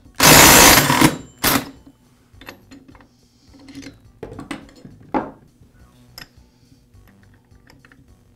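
DeWalt impact driver hammering for about a second, then a short second burst, as it spins a chainsaw clutch off the crankshaft; engine compression holds the crankshaft still. Then a few light metal clinks as the clutch and tool are handled.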